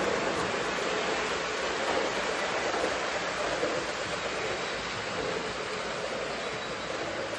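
O gauge model trains running on three-rail layout track, a steady rolling noise from the wheels and motors that slowly gets quieter as they move off.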